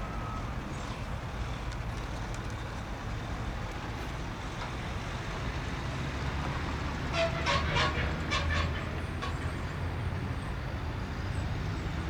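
Steady low rumble of an airliner's jet engines at low power on the runway before the take-off roll. About seven seconds in, a short cluster of higher, voice-like sounds cuts across it for a couple of seconds.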